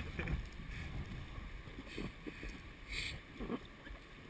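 River water rushing around an inflatable raft, with wind rumbling on the microphone and a few brief knocks and noises from the boat.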